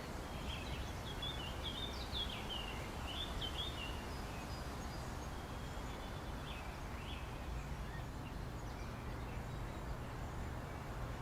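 Steady low background noise with small birds chirping over it: a quick run of short chirps in the first few seconds, then only a few scattered calls.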